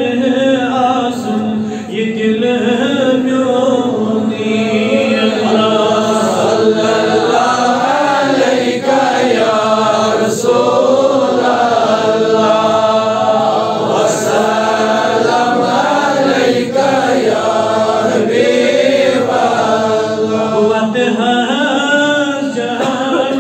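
Voices chanting a slow, melodic devotional recitation, with long wavering notes held over a steady low tone.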